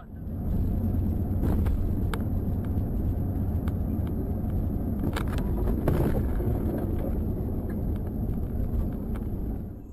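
Steady road and engine noise of a car driving on a highway, picked up by its dashcam, with a few short sharp knocks: two near the start and two more around the middle.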